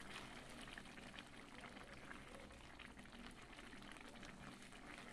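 Misua noodle soup simmering in a pan, faint steady bubbling with many small pops.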